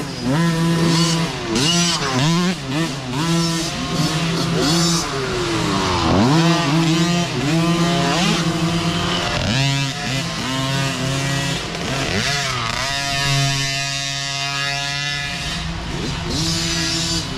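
Small youth dirt bike engines revving, several at once, their pitch climbing and dropping over and over with throttle and shifts. Partway through, one engine holds a steadier note for a couple of seconds before the revving picks up again.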